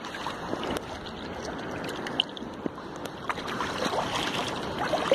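Seawater lapping and sloshing close to the microphone, with many small splashes and crackles that get busier about three seconds in.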